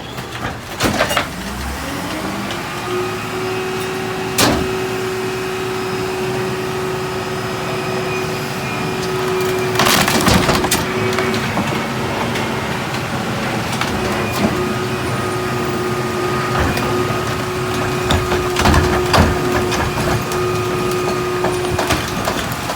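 Mini New Way rear-loader garbage truck's packer running: engine and hydraulic pump rev up to a steady whine over the first few seconds while the blade crushes heavy trash. Wood cracks and splinters in sharp snaps, loudest about ten seconds in and again near the end.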